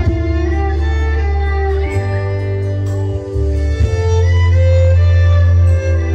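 A violin playing a slow melody in long held notes over accompaniment with a deep, steady bass.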